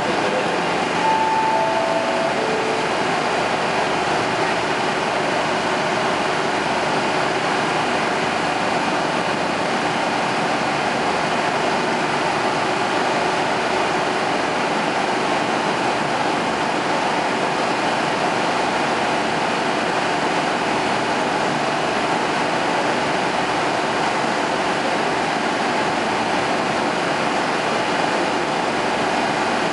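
Diesel railcar idling steadily while standing at the platform, a constant engine and equipment hum. About a second in there is a short falling three-note tone.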